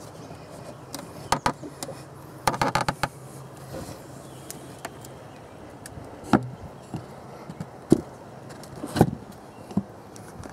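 A scatter of light knocks and clicks, with a quick rattling clatter about two and a half seconds in: the wooden lid of a top-bar beehive being closed and its metal hook latch handled.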